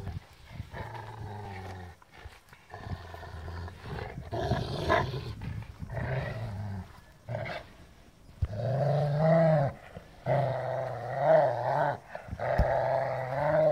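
Dogs play-growling during a tug-of-war over a rope toy: an American Staffordshire terrier and a Rottweiler. A run of long, drawn-out growls, louder in the second half.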